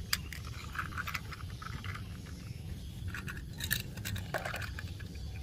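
Hard plastic clicks and scrapes as Plarail toy train cars are fitted together and set onto plastic track, a few sharp clicks bunched a little past the middle, over a low steady background rumble.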